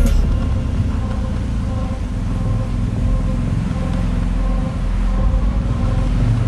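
BMW R 1250 GS boxer-twin motorcycle riding along, its engine running under a steady low rumble of road and wind noise.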